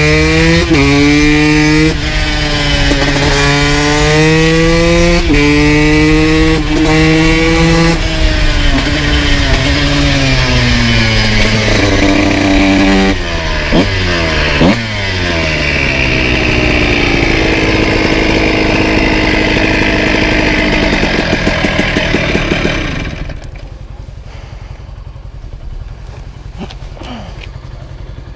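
Honda CR125 two-stroke motorcycle with an FMF full exhaust, ridden hard. The pitch rises through the revs and drops back at each upshift, falls away while slowing, gives a couple of quick throttle blips, then holds steadier. About 23 s in, the engine sound falls away sharply to a much quieter low rumble.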